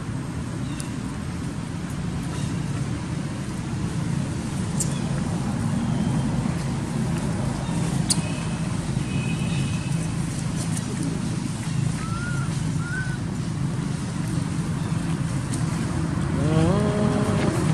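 Steady low rumble of passing motorbikes and road traffic, with two short faint chirps about two-thirds of the way through and a voice-like call starting near the end.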